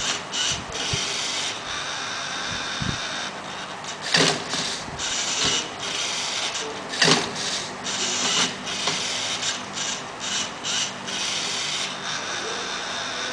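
LEGO Mindstorms NXT Rubik's cube solving robot at work: its motors and plastic mechanism grinding in short starts and stops, with two sharp clacks about four and seven seconds in.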